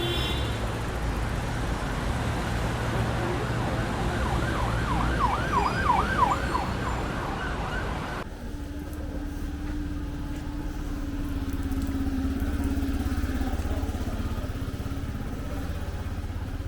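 Street traffic rumbling, with an emergency-vehicle siren in a fast yelp, sweeping rapidly up and down in pitch, from about four seconds in; about eight seconds in the sound changes abruptly to traffic noise with a steady engine hum.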